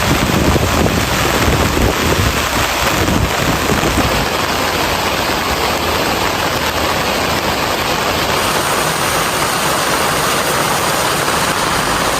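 Heavy rain drumming steadily on a travel trailer's roof, heard from inside, with a low rumble that eases off about four seconds in.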